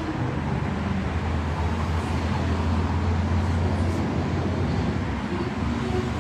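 Steady low rumble of background road traffic, swelling a little in the middle.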